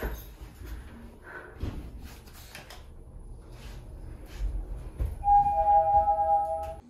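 Passenger elevator moving, a low rumble with a few faint knocks. About five seconds in, a two-note chime rings: two steady tones, the lower one starting just after the higher, held for about a second and a half, typical of the car arriving at its floor.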